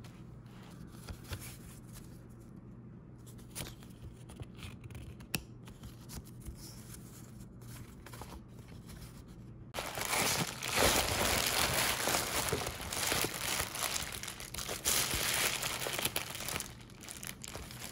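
Quiet room with a few small clicks, then from about ten seconds in, packaging material being crinkled and torn in a dense crackling rush.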